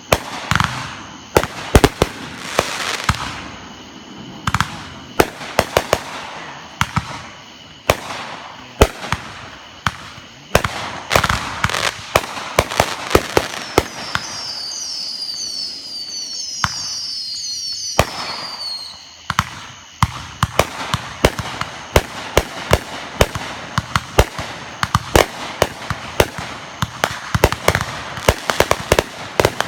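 Consumer fireworks going off in rapid succession: many sharp bangs and stretches of crackling hiss. About halfway through comes a flurry of overlapping short whistles, as from whistling fireworks.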